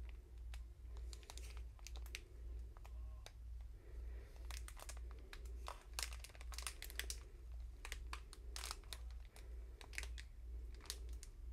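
Clear plastic packaging of bagged diamond-painting drills crinkling faintly as it is handled and turned, in scattered short crackles.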